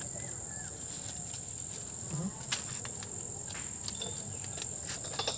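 Insects in the surrounding trees giving a steady, high-pitched drone, with a few short clicks and taps from handling close by.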